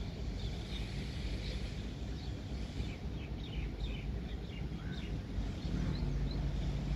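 Birds chirping in short, quick high calls over a steady low outdoor rumble, with a low hum that grows louder near the end.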